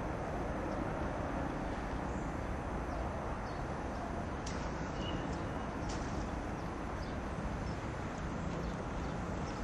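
Airbus A310-300 jet airliner on its takeoff run, its twin turbofan engines at takeoff power giving a steady, even jet noise as it accelerates down the runway and rotates.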